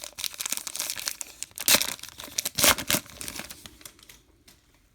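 Plastic wrapper of a baseball card pack crinkling as it is torn open, with the loudest crackles about two and three seconds in, dying away after about three and a half seconds.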